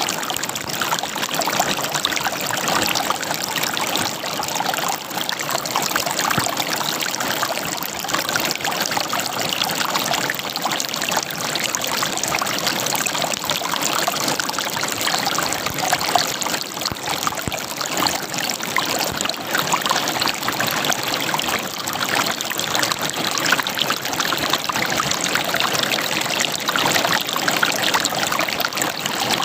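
River water running over rocks: a steady, close-up gurgle and splash.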